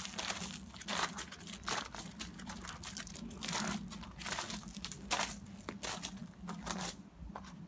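Irregular rustling and crackling, with sharp crackles every half second or so, over a steady low hum.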